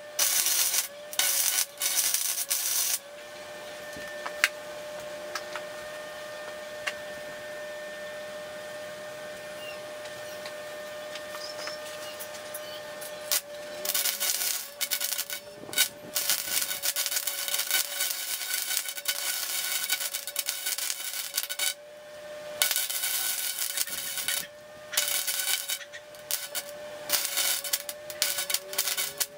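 Electric arc welding on steel tube: the crackling sizzle of the arc in runs, stopping after about three seconds and starting again about ten seconds later for several more broken runs. A faint steady tone lies under it throughout.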